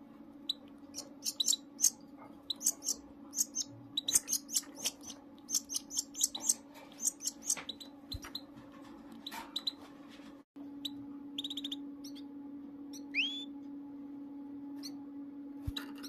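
A goldfinch × canary hybrid nestling gives rapid, high begging cheeps as the canary hen feeds it, over a steady low hum. After a short break about ten seconds in, the cheeps come only now and then, with one rising call a few seconds later.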